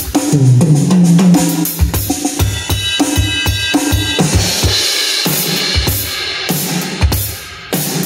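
Drum kit played: electronic drum sounds from a Pearl Mimic Pro module, triggered from mesh-head pads, together with acoustic cymbals. Pitched tom hits come near the start, then quick kick and snare strokes. Crashing cymbals wash over the kit about halfway through.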